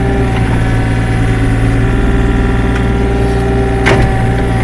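Mini excavator's diesel engine running steadily at an even pitch as the bucket tamps soil, with a single knock about four seconds in.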